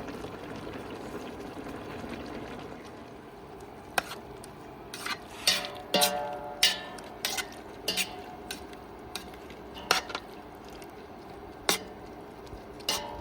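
A spoon stirring and clinking against a cooking pot of squash stew: about a dozen sharp knocks from about four seconds in, some leaving the pot ringing briefly, over a steady hiss of the pot cooking.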